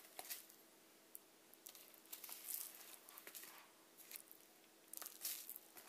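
Faint scraping and rustling of a small plastic scoop being dug into citric acid powder, in a few short bursts about a second apart, over a faint steady hum.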